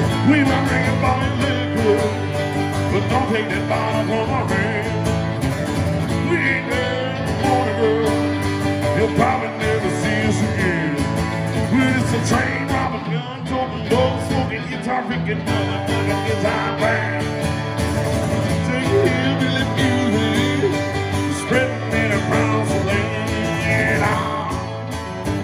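Two acoustic guitars played live together, one strumming steady chords while the other picks lead lines over them.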